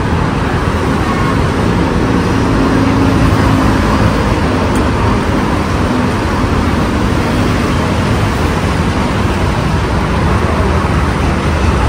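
Steady road traffic on a multi-lane city avenue, with cars and motorcycles running past in a continuous, even rush of engines and tyres.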